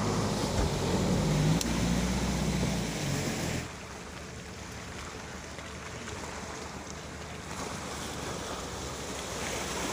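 Suzuki Grand Vitara's engine revving under load as it drives through muddy ruts, its pitch rising and falling, with wind rushing on the phone's microphone. About three and a half seconds in the sound drops abruptly to a quieter, steady rushing noise.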